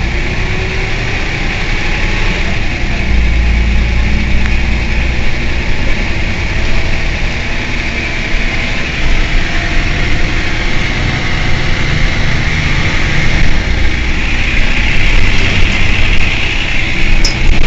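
Mercedes-Benz O 405 N city bus's rear-mounted diesel engine idling steadily with a low rumble, which swells slightly about three seconds in.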